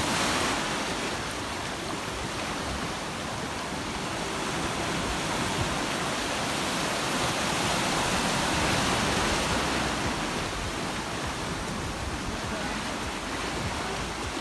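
Surf washing over a rocky shore platform: a steady rush of broken water that builds to a louder surge about halfway through.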